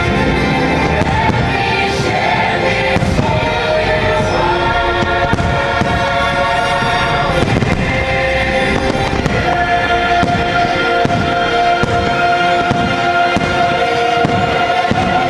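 Fireworks going off in rapid, repeated bursts over loud show music from the park's speakers.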